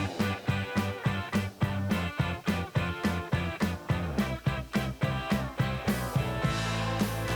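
Background music: an instrumental funk-style track with guitar and a steady, quick beat.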